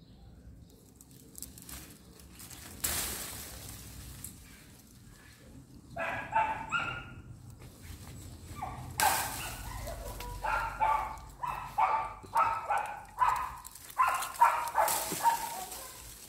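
A small dog barking repeatedly in quick runs, starting about six seconds in and going on until near the end. A few brief rustling noises come from leaves and branches being handled.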